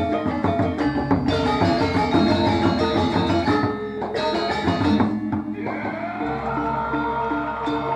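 Balinese gamelan gong kebyar playing dance-drama music: a dense passage of interlocking metallophones and drums. It breaks off briefly a little past halfway, then returns as an evenly repeating pattern with a gliding melody line above it.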